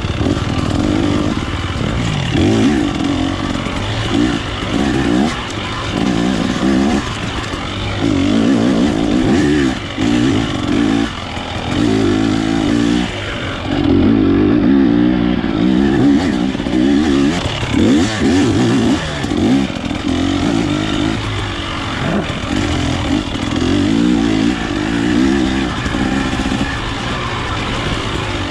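Dirt bike engine being ridden off-road, the throttle opened and closed in short bursts so the engine note rises and falls every second or two.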